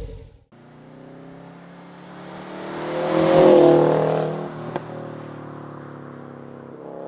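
Subaru WRX STI's turbocharged EJ boxer four running through an AWE Touring Edition catback exhaust, a steady boxer rumble that swells loud about three seconds in and then settles back.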